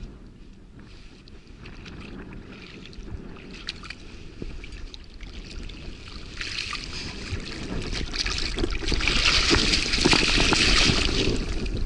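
A large brown trout thrashing and splashing in shallow water at the bank as it is landed. The splashing builds from about halfway through and is loudest near the end.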